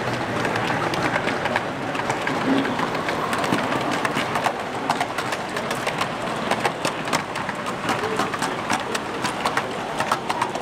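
O gauge model train's wheels clicking over the rail joints as a long rake of wagons and coaches passes close by, the clicks coming thick and fast from about four seconds in. Steady murmur of a crowded exhibition hall underneath.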